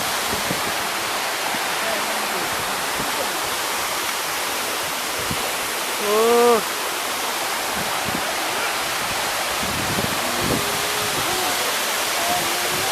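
Coban Baung waterfall rushing steadily. A short call from a person's voice, lasting about half a second, comes about six seconds in and is the loudest sound. Fainter voices follow near the end.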